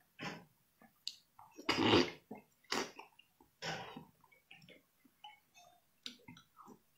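Close-up wet eating sounds: slurping and chewing of food dripping with sauce, in a string of short, irregular bursts, the loudest about two seconds in.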